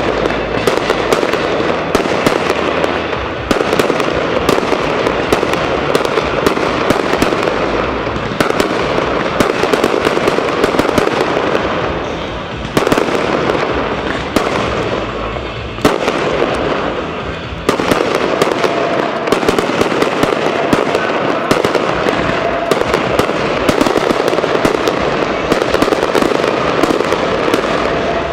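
Fireworks display: a dense, continuous barrage of crackling and popping from aerial shells bursting overhead, easing briefly a few times around the middle before picking up again.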